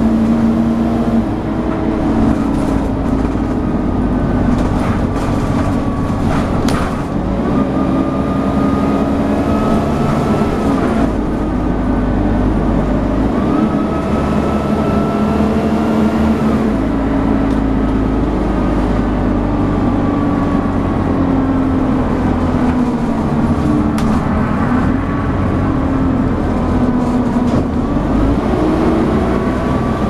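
Dennis Dart SLF 4 / Alexander Enviro 200 single-deck bus heard from inside while being driven hard. The diesel engine drones loudly under load, with a higher whine above it, vacuum-cleaner-like. Both climb and fall back several times as the automatic gearbox changes, with a few brief body rattles.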